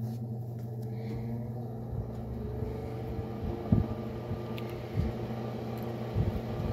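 Vintage Supier Electric model 874 desk fan running on high, its only speed, with a steady electric motor hum and a whine that rises over the first couple of seconds as the blades come up to speed. A few low thumps come through as well. The motor, seized and squealing before it was oiled, now runs smoothly but loud.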